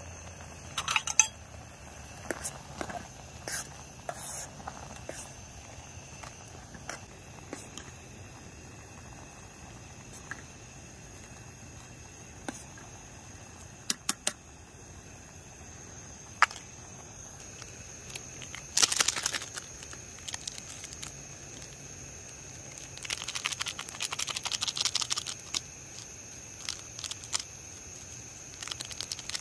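A metal spoon clinking and knocking against a camping pot of instant noodles in scattered single strokes. Later come two stretches of crinkling from a plastic seasoning sachet being handled and emptied into the pot.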